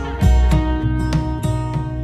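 Background music: acoustic guitar strummed and plucked in repeated chords.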